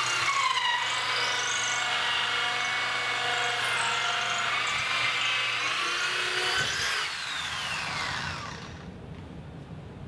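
Corded electric drill driving a freshly sharpened 2 1/8-inch hole saw through a cedar door, its motor running steadily as the saw cuts easily. About seven seconds in the trigger is released and the motor's pitch falls as it winds down.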